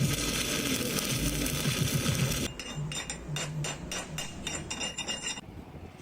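Shielded metal arc (stick) welding with an E6010 rod: a dense, steady crackle and hiss of the arc that cuts off suddenly about two and a half seconds in. It is followed by a run of about nine sharp metallic clinks, roughly three a second.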